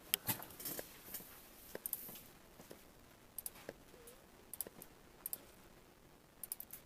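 Faint, irregular clicks and taps of a computer keyboard and mouse being worked, some in quick runs of three or four.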